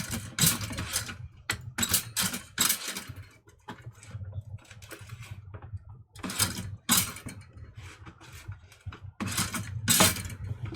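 Black & Decker toaster's carriage lever being pushed down and springing back up, a run of short clicking clatters with pauses between them: the carriage won't latch and stay down.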